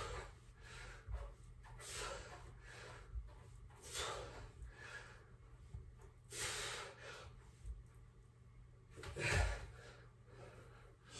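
A man breathing hard through a set of push-ups, with a forceful exhalation about every two seconds. Near the end comes a heavier breath with a low thud as he gets up off the floor.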